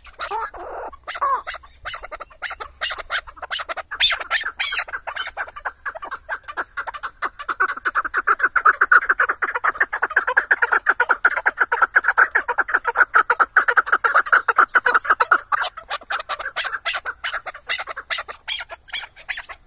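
Chukar partridge calling: a long, rapid run of repeated chuck notes that builds to its loudest in the middle and eases off near the end.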